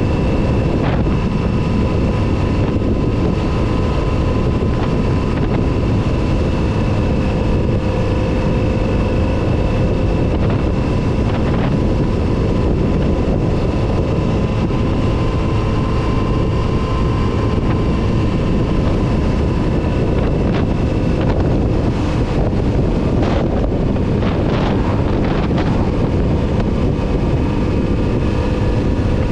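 Kawasaki Z900RS inline-four engine running at a fairly steady pace on the road, under heavy wind noise on the microphone.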